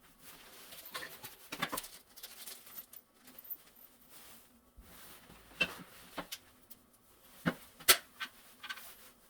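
Irregular clicks and taps of something being handled, with two sharper knocks close together about seven and a half seconds in.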